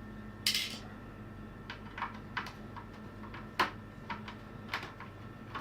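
Small screws being backed out of an Amiga 500 keyboard's plastic case with a screwdriver: irregular light clicks and ticks of the driver and screws, a short scrape about half a second in, and the sharpest tick about three and a half seconds in, over a faint steady hum.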